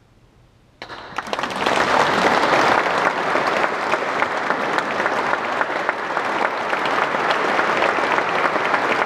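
Audience applause in a large church, starting suddenly after a brief quiet under a second in and continuing as steady, dense clapping.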